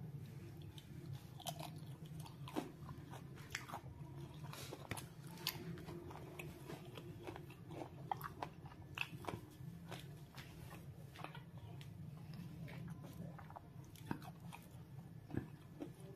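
Someone chewing crisp fried chicken liver: faint, irregular crunching clicks over a low steady hum.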